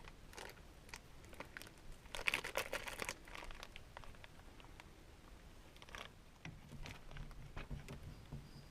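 Handling noises: scattered clicks and knocks, with a burst of crinkling, crackling rustle about two seconds in, and a faint low hum near the end.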